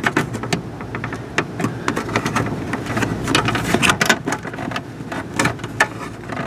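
Irregular clicks and taps of hands working a small clip under a car's dashboard loose.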